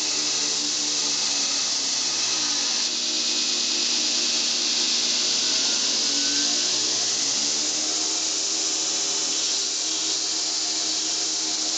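Home-built 2x72-inch belt grinder, driven by a 2 HP electric motor through step pulleys, running on a fast pulley step while a piece of steel is ground on the belt: a steady hiss of abrasive on metal over the hum of the motor and belt.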